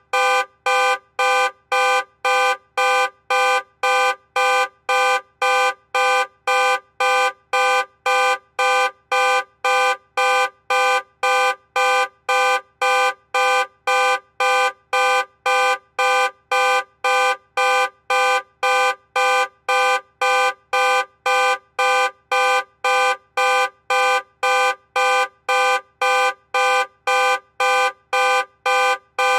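Car alarm sounding the horn in short, identical blasts repeated evenly, nearly two a second.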